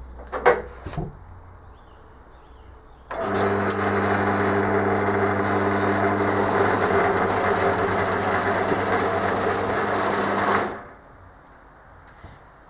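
Bandsaw on its slow speed cutting steel stock: a steady motor hum under the hiss and rasp of the blade in the metal, starting abruptly about three seconds in and winding down near the end. A single click comes about half a second in.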